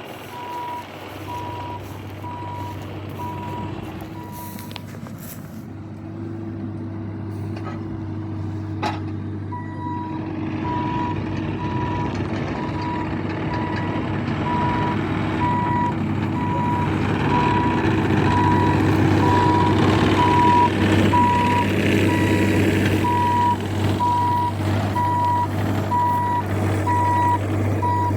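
Machine's back-up alarm beeping steadily over a running engine; the beeping stops for a few seconds, then resumes while the engine grows louder as the machine comes closer.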